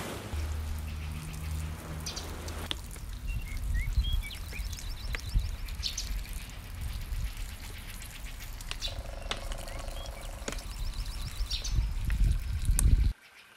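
Footsteps and rustling through leafy undergrowth, a string of small clicks and snaps over a low rumble, with short bird chirps and trills. The sound cuts off abruptly near the end.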